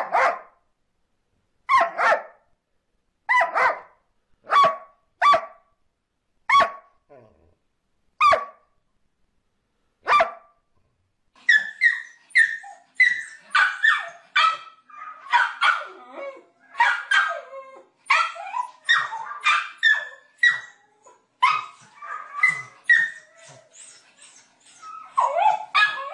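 An older black-and-white dog barking, single barks about every second and a half for the first ten seconds. After that, a small white dog yips and barks in rapid excited runs with its head raised.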